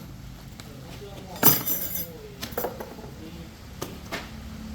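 Metal parts clinking against each other: one loud ringing clank about a second and a half in, followed by a few lighter clinks.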